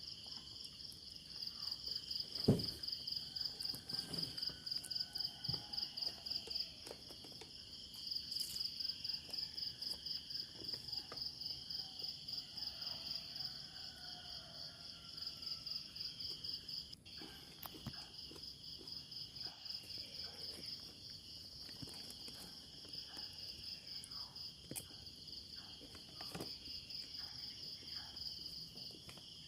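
Crickets chirping in a steady high pulsing trill, about three pulses a second, with a single short knock about two and a half seconds in.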